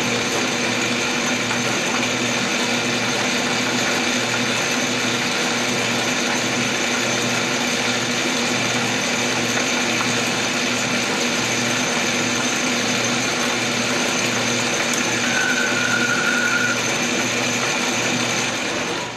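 Metal lathe running with aluminium bar stock spinning in the chuck: a steady motor-and-gear whine while a light finishing spring cut is taken. A higher thin whine comes in briefly about fifteen seconds in, and the machine is shut off at the end.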